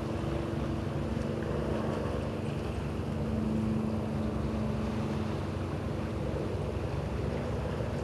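Steady low mechanical hum, like an engine running, over a constant rushing background; the hum swells slightly about halfway through.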